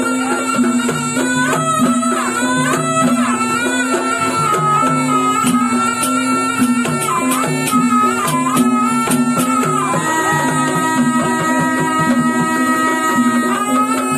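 Live ebeg music: a slompret (Javanese double-reed shawm) plays a winding, bending melody over a repeating gamelan accompaniment with percussion. About ten seconds in, the slompret settles into one long held note.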